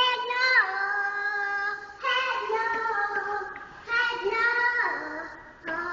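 A young child singing a made-up tune with no clear words, in three long phrases of held notes, several ending in a downward slide.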